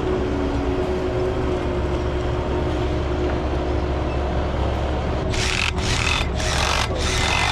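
Steady engine rumble from machinery running on the job site; about five seconds in, rhythmic rasping strokes start, roughly two a second, a hand saw cutting pipe.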